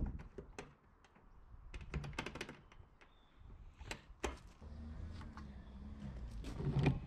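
A scattering of light clicks and taps from hands working the latch of a metal storage locker door, with a low hum coming in near the end.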